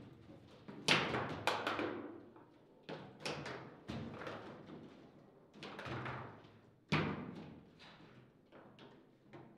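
Foosball table in play: a series of sharp, irregular knocks as the ball is struck by the figures and the rods clunk against the table, each with a short ringing decay. The loudest knocks come about a second in and near seven seconds.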